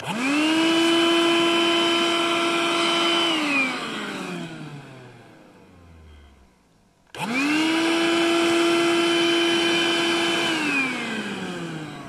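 An 18-volt cordless vacuum cleaner switched on twice, each time for about three seconds. Its motor whines up to a steady pitch at once, then spins down with a falling whine after release. The short bursts suck insect larvae off potato leaves.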